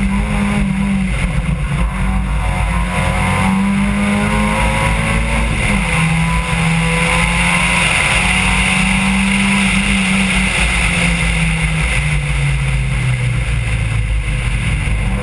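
Rally car engine heard from inside the car at speed, the revs climbing and then dropping at each gear change, several times over, over constant road and wind noise.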